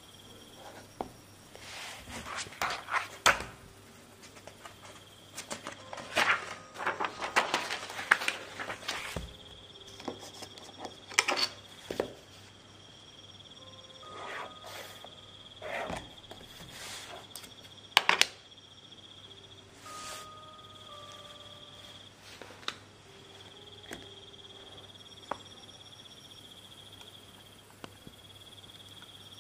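Pen writing on notebook paper in irregular bursts of scratches and sharp taps, over a steady background of chirping crickets and insects from a night-forest ambience track.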